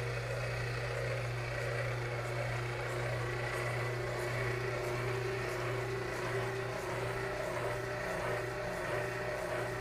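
Motor-driven line boring bar running steadily with a quarter-inch drill bit in the chuck on its end, drilling into the repaired section of a tractor's rear case. An even machine hum with a few steady tones over it.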